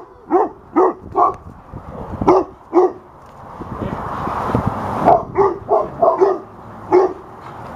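Dogs barking in quick runs of sharp barks, about two a second. A swelling rush of noise fills a pause in the barking from about three to five seconds in, then the barking starts again.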